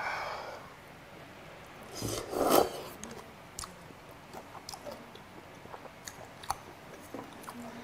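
A man slurping noodles from a bowl of cold raw-fish soup about two seconds in, then chewing, with many small wet mouth clicks and smacks.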